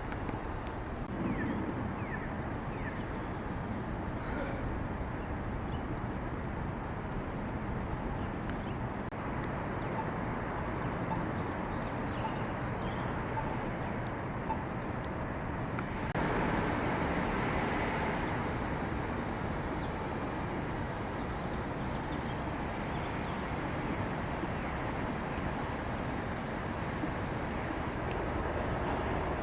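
Steady street traffic noise, with one louder vehicle passing about sixteen seconds in.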